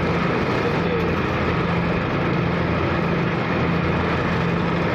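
The KMP Sumut 2 car ferry's engine running with a steady low hum under an even rushing noise.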